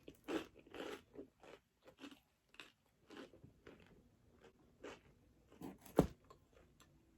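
A person biting and chewing food close to the microphone: irregular crunches and chewing sounds, with one sharp click about six seconds in.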